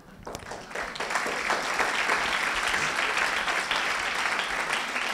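Audience applauding, many hands clapping together; it builds up within the first second and holds steady.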